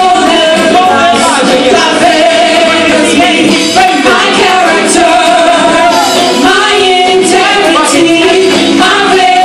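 A gospel vocal group of men and women singing loudly into microphones, amplified through the hall's speakers.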